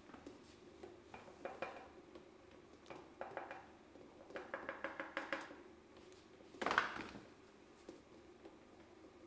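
Commercial stand mixer running on first speed with a steady low hum while flour is added to the creamed batter. Short runs of rapid clattering taps come three times, and one louder burst of noise about seven seconds in.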